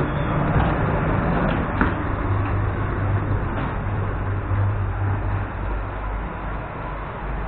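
ЭП2Д electric train standing at a platform: steady noise with a low hum from its onboard equipment, and a few knocks as someone steps aboard and walks into the carriage.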